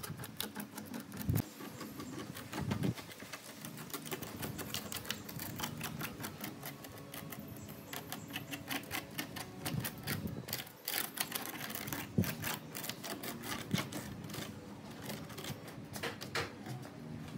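Rapid, irregular light wooden clicks and taps: the slats of a wooden lattice grid knocking against each other and against a wooden ring as the grid is pressed and shifted into place.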